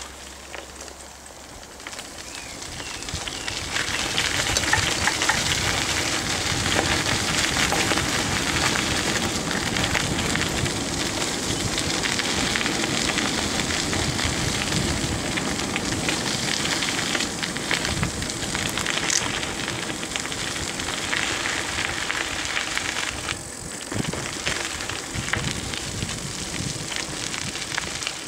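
Steady crackling, rattling noise of a bicycle rolling along a rough paved path strewn with leaves. It grows louder a few seconds in as the bike picks up speed.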